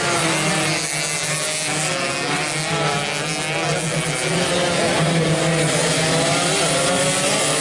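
A pack of standard two-stroke underbone racing motorcycles, several engines at once, revving hard through a corner, their pitches rising and falling and crossing as riders change throttle and gears. A steady low hum sits underneath.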